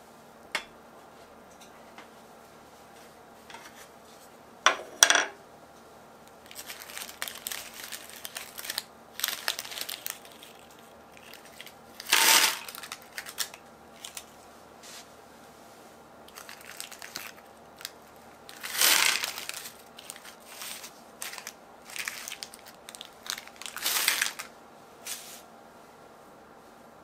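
Kitchen work sounds from handling baking tools and ingredients: a pair of sharp clicks about five seconds in, then scattered rustling and scraping bursts, each lasting about a second.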